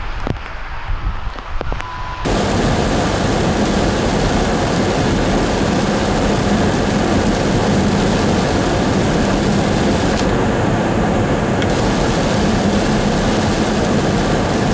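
Inside a car driving a freeway in heavy rain: a loud, steady rush of rain on the roof and windshield and tyres hissing on wet pavement, over a low drone. It starts abruptly about two seconds in, after a short stretch of scattered knocks and bumps.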